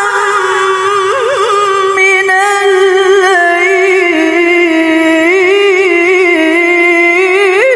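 A woman reciting the Quran in the melodic tilawah style, drawing out one long held phrase without a break, with wavering ornaments and a rising flourish near the end.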